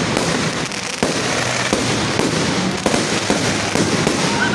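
Aerial fireworks display: a dense run of overlapping pops and bangs from bursting shells, with sharper reports about one second and nearly three seconds in.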